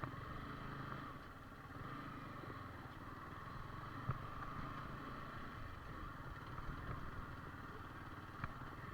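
Yamaha R15 V4's single-cylinder engine running steadily as the motorcycle is ridden up a rocky trail, with two brief knocks along the way.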